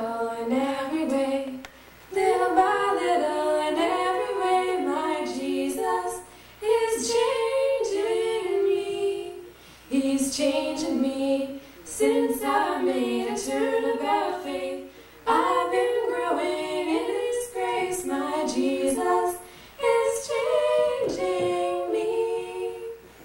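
Two women singing a song together without accompaniment. They sing in phrases a few seconds long, with short breaks between them.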